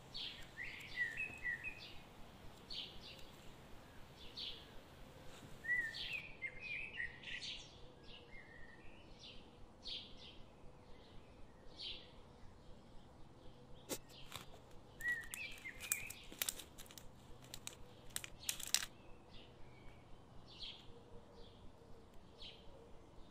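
Small songbirds chirping, short high calls repeating about once a second, with a few brief rising whistles. A few sharp clicks come in the middle.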